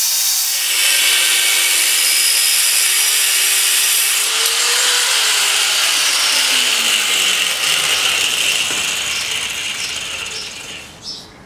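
Angle grinder with a cutoff disc cutting through steel engine mounts on a thin-walled bicycle frame: a loud, hissing grind. A few seconds in, the grinder comes off the metal and its whine falls in pitch as the disc winds down, fading near the end.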